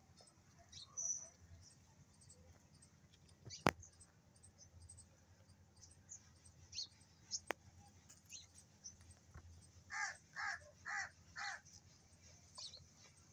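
A crow cawing four times in a steady run, about half a second apart, near the end. A single sharp click a few seconds in is the loudest sound.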